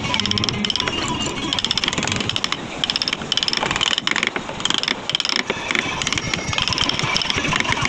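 Mallet tapping a carving gouge into a wooden relief panel: rapid, repeated light strikes as the gouge cuts in.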